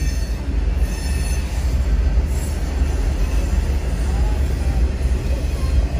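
Freight train of enclosed autorack cars rolling past, heard from inside a car: a steady low rumble, with faint high wheel squeals about one second and two and a half seconds in.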